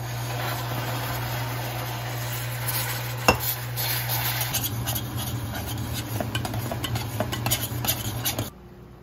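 Hot caramel in a stainless steel saucepan hissing and spitting as added water boils off in steam. From about halfway through, a metal spoon clinks and scrapes against the pan, over a steady low hum. The sound cuts off abruptly near the end.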